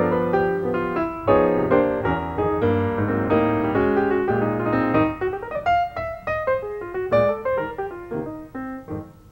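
Piano music: full chords over a bass line, thinning about halfway through to lighter single notes.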